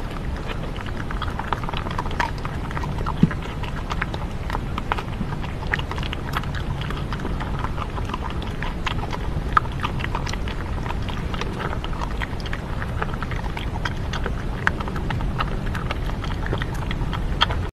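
A red fox and a European badger eating dry food from a wooden barrel: an irregular run of small crunches and clicks as they chew, one sharper click about three seconds in, over a steady low rumble.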